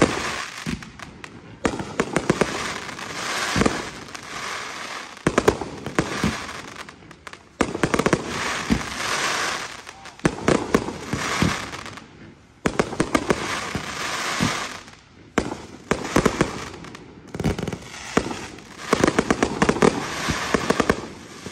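Fireworks display: aerial shells bursting one after another with sharp bangs, each followed by a dense crackle that lasts a second or two.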